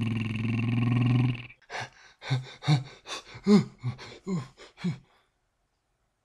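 A steady, pitched engine drone that swells for about a second and a half, dubbed in for a Lego truck. It is followed by a run of about nine short grunting vocal sounds over three seconds, like the effort noises of running characters, which stop about five seconds in.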